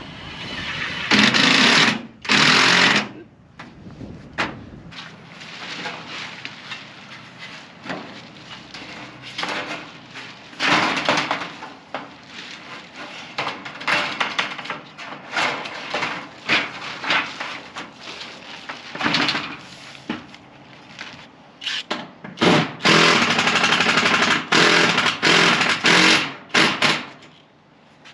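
Power screw gun driving screws into the coop's sheet-metal panels, in several loud rattling bursts of a second or so, with a longer run of bursts near the end.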